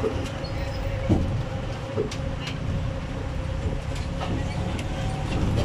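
Open-sided sightseeing vehicle driving along a city street, heard from a seat aboard: a low engine rumble with a steady whine, and the frame and fittings rattling in scattered clicks.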